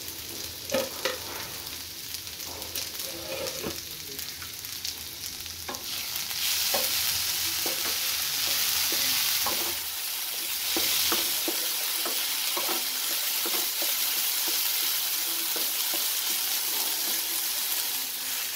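Potato and jackfruit-seed strips sizzling in a nonstick frying pan while a wooden spatula stirs them, scraping and tapping against the pan. The sizzle grows louder about six seconds in.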